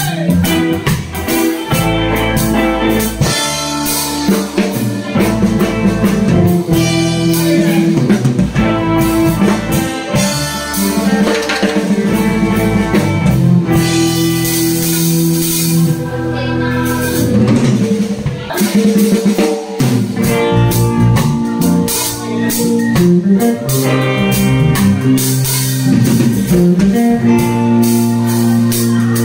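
Live band playing an instrumental passage with keyboard, electric bass guitar and drum kit.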